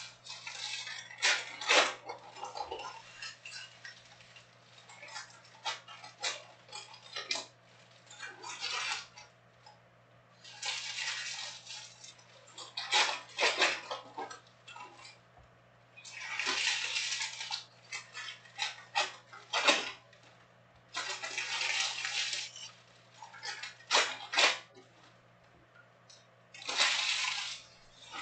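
Plastic trading-card wrappers crinkling and tearing in repeated bursts every few seconds as packs are opened, with sharp clicks and taps of cards and boxes being handled between them.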